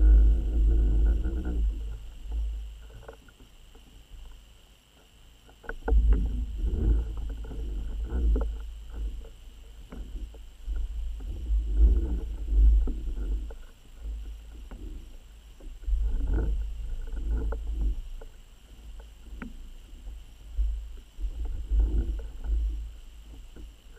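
Underwater sound picked up by a submerged camera: low rumbling water movement that swells and fades in surges every few seconds, with scattered clicks and knocks.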